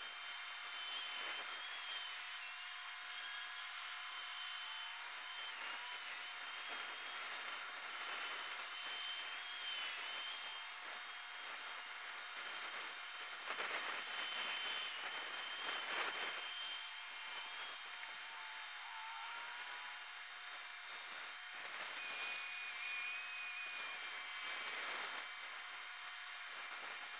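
Track maintenance machines working, a tamper and a ballast regulator, heard as a continuous rasping, sawing-like noise with only the higher pitches present. It swells louder a couple of times and carries a few brief whistling glides.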